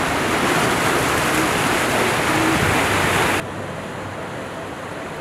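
Ocean surf washing over coastal rocks, a loud steady rush that drops off abruptly about three and a half seconds in to a quieter wash.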